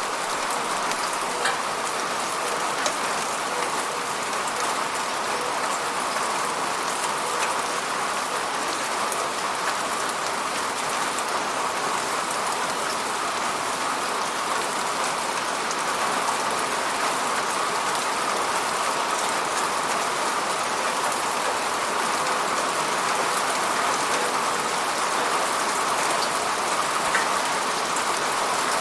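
Steady falling rain, a continuous hiss of drops hitting a surface, with scattered individual drop ticks and no thunder.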